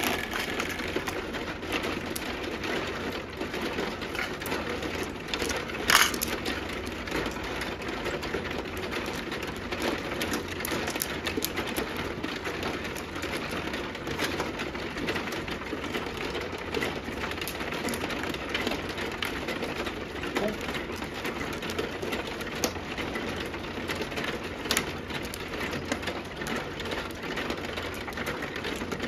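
Mahjong tiles clicking and clacking as players draw, arrange and discard them on an automatic mahjong table: a steady run of light clicks, with one sharper clack about six seconds in.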